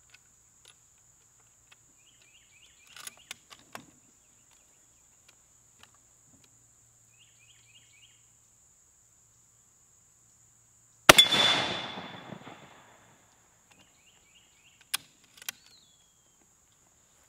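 A single shot from a Mosin-Nagant 91/30 rifle rechambered for .500 S&W Magnum, firing a hollow-point bullet at a steel target about eleven seconds in, very loud and trailing off over a couple of seconds. A few faint clicks come before it and two sharp clicks follow near the end.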